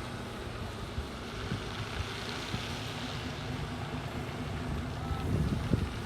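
Fire engine idling with a steady low rumble, and a few louder knocks near the end.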